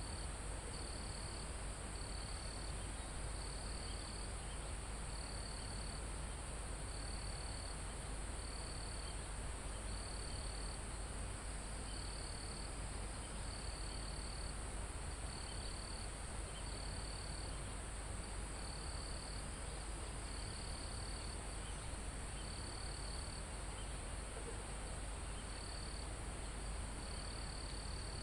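Crickets and other insects calling in a forest: a steady high-pitched insect chorus, with a cricket trilling in short bursts about once a second, over a low rumble of wind.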